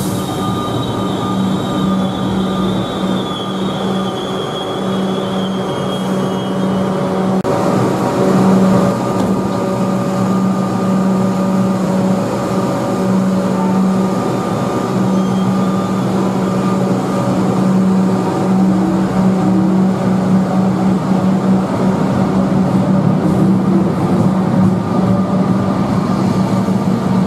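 Suburban electric train in an underground station, with a high wheel squeal over the first few seconds and a steady low hum throughout. The running noise grows a little louder near the end as the train moves off.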